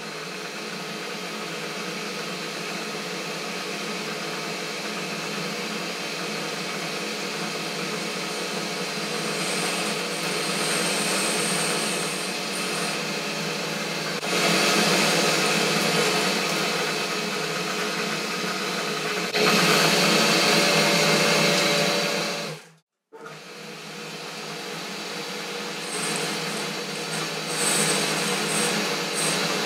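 Boxford metal-turning lathe running under cut, first centre-drilling the end of a bar and then turning it, with a steady motor and gear hum under the cutting noise. The cutting gets louder in stretches, and the sound drops out for a moment about two-thirds of the way through.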